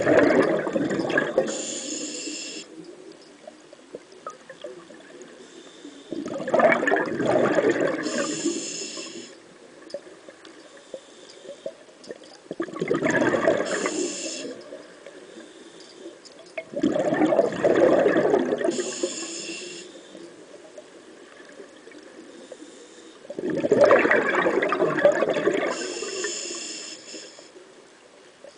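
Scuba diver breathing through a regulator underwater: five gurgling bursts of exhaled bubbles about every six seconds, each followed by a short high hiss.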